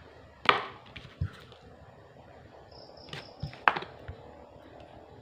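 Handling noise from a USB charging cable and a plastic power bank being picked up and moved: a few sharp knocks and clicks, the loudest about half a second in and again past the middle.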